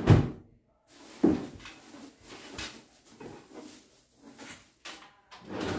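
A drawer of a small bedside chest sliding open and shut, with items inside being rummaged through: two louder knocks near the start, then a run of small clicks and rustles, and another knock at the end.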